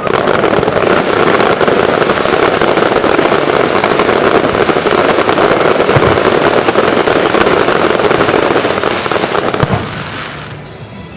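Aerial fireworks crackling: a loud start followed by a dense, continuous crackle of many small bursts for about ten seconds, dying away near the end.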